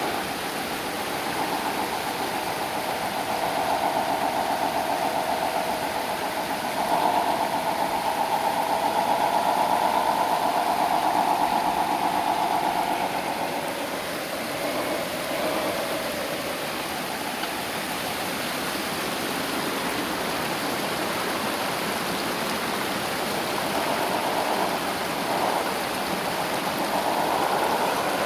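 Small electric drive motor and gearbox of an MN 128 RC rock crawler whining as it drives, for a long stretch in the first half and again near the end.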